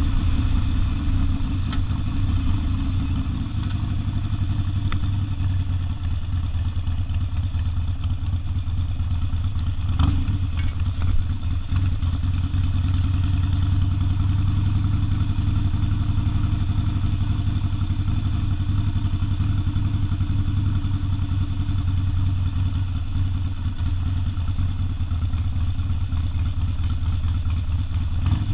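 Harley-Davidson Sportster's V-twin with open exhaust running steadily, a low rumble that stays even throughout, with one brief click about ten seconds in.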